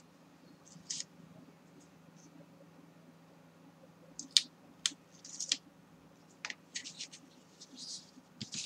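Sparse light scratches and clicks of fingers and a hobby-knife tip picking at a kraft cardboard album cover, coming more often in the second half, over a faint steady hum.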